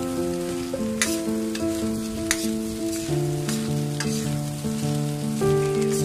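Rice with prawns and spring onions sizzling as it is stir-fried in a steel wok, with several sharp scrapes and clinks of a metal spatula. A background melody of held notes plays throughout.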